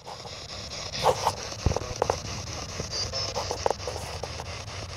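P-SB11 spirit box sweeping through radio stations: a steady hiss of static broken every fraction of a second by crackles and short clipped fragments of sound.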